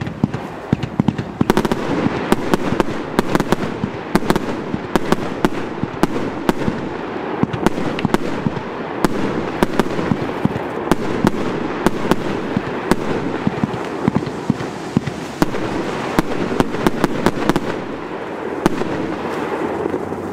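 Consumer firework battery (cake) firing in one continuous volley: a dense run of sharp reports and bursting stars over a steady rush of noise, starting abruptly.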